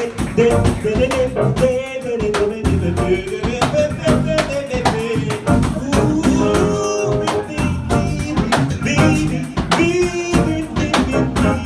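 Live Brazilian jazz combo playing an instrumental passage: a melodic line over bass, with the jingles and slaps of a pandeiro keeping a busy, steady rhythm.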